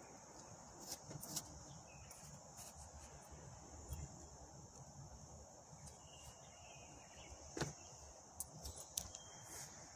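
Faint, steady high-pitched insect buzz, with a few short sharp clicks scattered through it.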